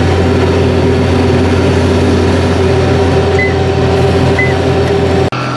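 Combine harvester running steadily while harvesting soybeans, a loud even machine hum. Two short high beeps sound about a second apart in the middle. Near the end the sound cuts off abruptly to a quieter, lower hum.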